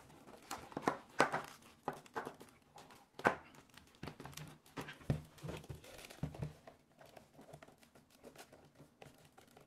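Hands handling and bending stiff veg-tanned leather pieces into shape: irregular rustles, creaks and light knocks, thinning out toward the end.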